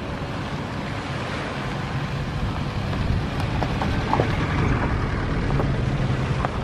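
Wind buffeting the microphone over a steady low rumble, with a sound like surf in the background.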